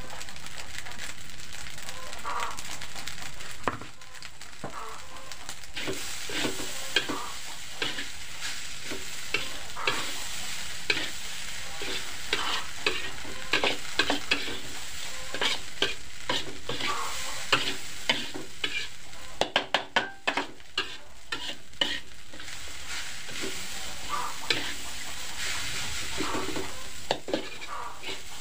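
Fried rice sizzling in a large metal wok while a metal spatula scrapes and knocks against the pan as it is stirred and turned. A quick flurry of knocks comes about two-thirds of the way in.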